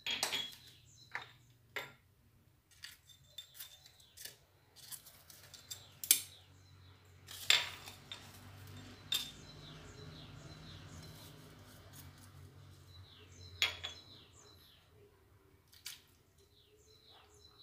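Clinks and knocks of small dishes and utensils against a glazed clay tagine as seasonings and grated onion are added to raw meat, with a softer stretch of scraping in the middle.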